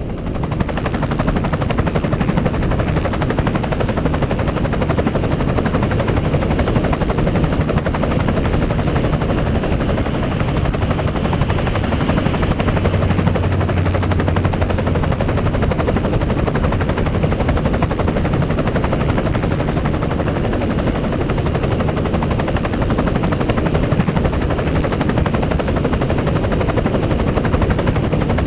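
Helicopter rotor and engine noise as heard in the cockpit: a steady, loud chopping drone with a deep rumble, fading in at the very start.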